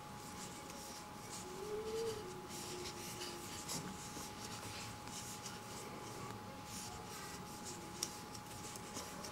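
Faint rustling and rubbing of cotton yarn being worked with a crochet hook, with soft scattered scratchy ticks as the stitches are pulled through.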